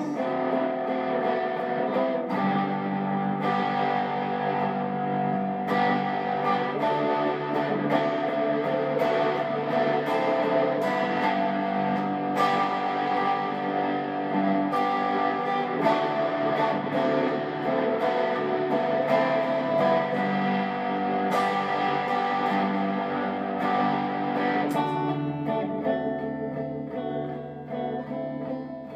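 Electric guitar played through a combo amplifier: an instrumental passage of many picked notes with no singing. About 25 s in the playing thins out and loses its bright top.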